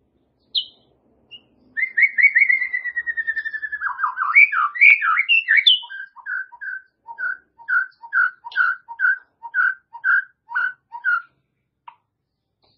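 White-rumped shama singing: a rapid trill that slides gently down, a few varied whistled glides, then a repeated two-note phrase, a higher note over a lower one, about twice a second.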